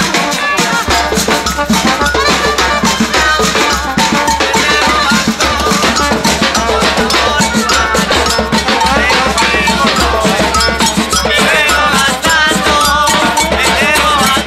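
Batucada drum group playing a samba rhythm on surdo bass drums and other percussion, dense and continuous.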